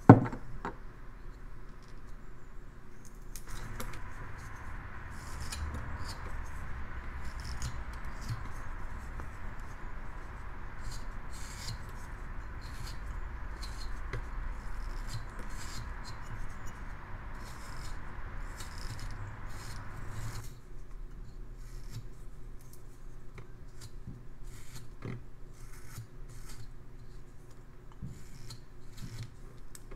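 Carving knife slicing thin chips from a basswood block: short, crisp cuts one after another. A sharp thump right at the start, and a steady background hiss from about three seconds in until about twenty seconds in.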